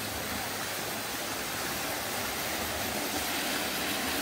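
Small waterfall splashing into a shallow rocky pool: a steady rush of falling water that grows slightly louder.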